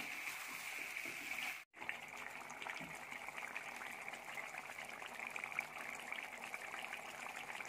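Chicken pieces simmering in their own released juices in an earthenware pot: a faint, steady hiss with small crackles and bubbling. The sound drops out briefly about a second and a half in.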